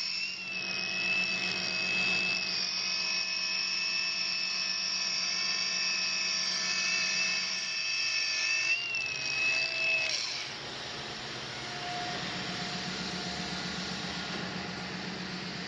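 Electric stone polisher running a wet Ceramica #500 pad over black granite, a steady whine with a high tone that wavers slightly. About ten seconds in the sound drops to a quieter steady running noise with a low hum.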